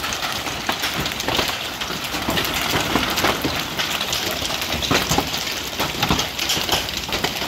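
Hailstorm with heavy rain: a steady downpour filled with many sharp hailstone impacts striking hard surfaces.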